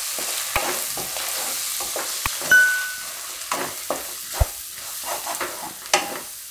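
Spices and chopped onion and capsicum frying in hot oil in a nonstick kadai, with a steady sizzle and a series of spatula strokes scraping and stirring against the pan. A short high ding sounds about two and a half seconds in.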